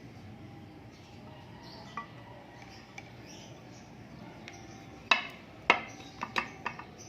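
Sharp clinks and clicks of small hard objects knocking together: two light ticks, then a quick cluster of five louder clinks about five seconds in, over a faint steady background hiss.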